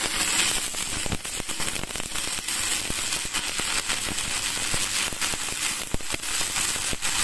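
Stick (MMA) welding arc from a Spark 400 MMA DC inverter welder burning a No. 10 electrode rod at full current: a steady sizzling crackle with frequent sharp pops throughout.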